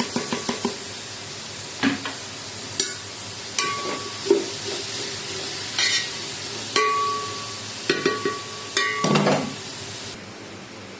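A metal spoon stirring and scraping in a cooking pot: quick rhythmic scrapes at first, then scattered knocks and clinks against the pot, some with a short ringing note. A steady sizzle runs underneath and drops away near the end.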